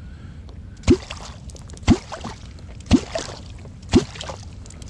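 A kwok (catfish clonker) struck into the water about once a second, each stroke a deep gulping pop that rises in pitch, with a splash after it. This is kwok calling, used to draw a catfish up toward the bait.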